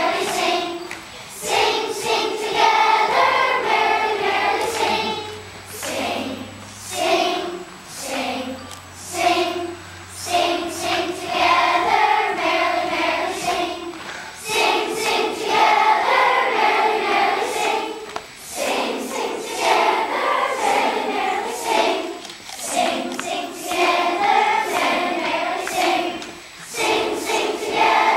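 A large children's choir singing a song together, phrase after phrase with short breaks between them.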